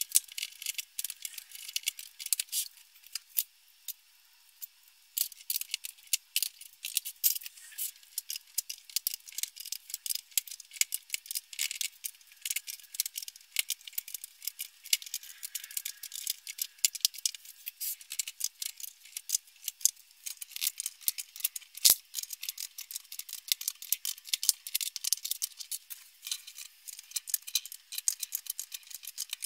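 18650 cylindrical cells being set one after another into plastic cell-holder grids: a fast, irregular clatter of light clicks and taps, sped up.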